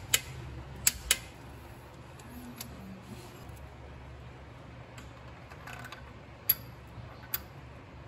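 Sharp metallic clicks from a wrench and hand tools on the timing-chain guide bolts of a 3.2 diesel engine: two near the start, a pair about a second in, then two more near the end, over a low steady hum.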